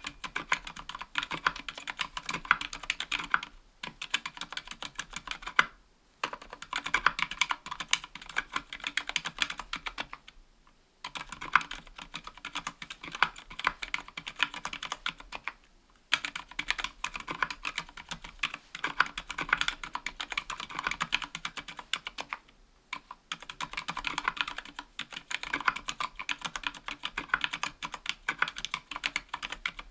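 Steady typing on a KBDfans Tofu 60% aluminium keyboard with Gateron Silent Black Ink linear switches, which are dampened silent switches, and GMK keycaps: fast runs of soft key presses broken by short pauses every few seconds.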